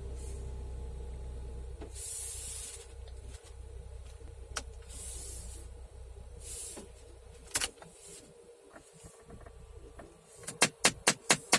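Heater air-flap actuator motor in a Jeep Compass dashboard. After a few scattered clicks and short hisses, it breaks into loud, rapid, even knocking near the end, about six knocks a second. The knocking comes from the failing flap motor and sets in when the fresh-air/recirculation setting is switched.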